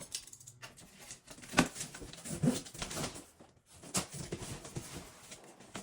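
Cardboard shipping box being handled and opened: irregular knocks, scrapes and rustling, with a couple of sharper knocks in the middle.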